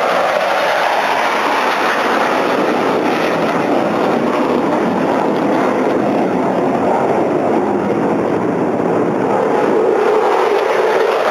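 Jet roar of Blue Angels F/A-18 Hornets in flight: a loud, steady rushing noise whose tone drifts slowly lower and back.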